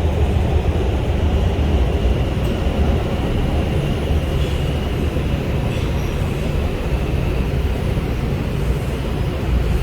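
Inside an R142 subway car running slowly through the tunnel: a steady low rumble of wheels on rail.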